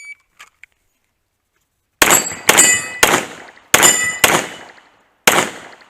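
Six pistol shots fired in quick, uneven succession, starting about two seconds in. Each is followed by a metallic ring, typical of steel targets being hit.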